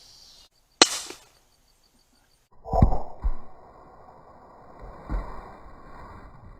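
A single sharp report, about a second in, of a .22LR blank firing a homemade ballistic knife's blade, with cricket chirps behind it. After a second of dead silence come several knocks and thumps.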